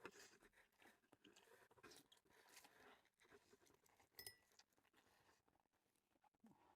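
Faint chewing and mouth sounds of someone eating spicy buldak ramen noodles, very quiet, with a light clink about four seconds in.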